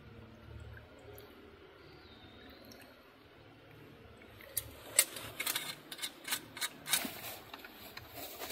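Low background hiss for a few seconds, then a run of sharp clicks and light rustling as a small camp stove's metal parts and its fabric pouch are handled, the loudest click about five seconds in.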